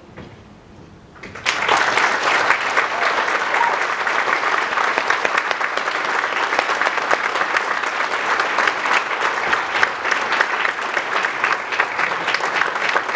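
Audience applause: quiet for about a second and a half, then clapping breaks out all at once and carries on steadily.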